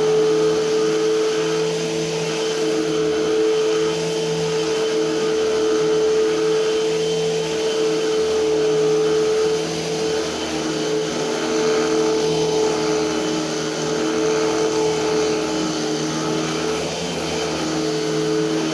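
Eureka AirSpeed Unlimited Pet upright vacuum cleaner running steadily, its motor giving a constant whine. The sound swells and eases about once every second and a half.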